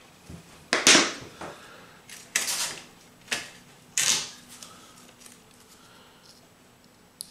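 Hand tools being put down and picked up on a workbench: a few short clicks, knocks and scrapes, the loudest about a second in, the rest over the next three seconds.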